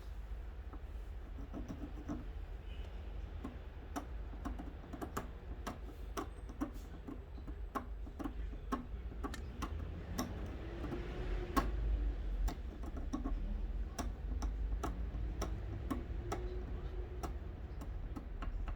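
Small, sharp clicks and taps, roughly two to three a second and irregular, as the parts of a worn fishing-rod reel seat and the tools used on them are handled, over a steady low hum.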